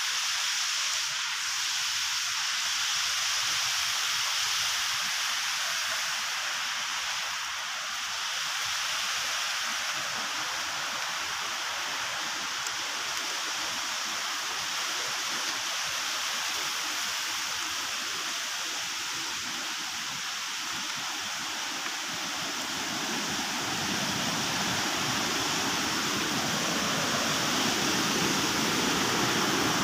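Steady rush of fast-flowing river water in white-water rapids, growing louder and deeper over the last several seconds as it comes nearer.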